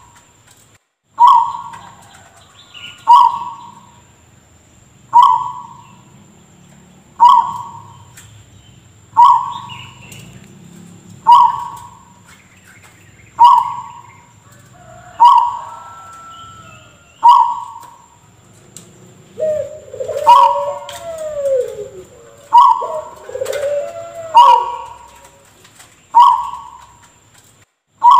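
Zebra dove (perkutut) repeating a short, odd call that sounds like a person coughing, about every two seconds. Around two-thirds of the way in, other bird calls that glide in pitch join in.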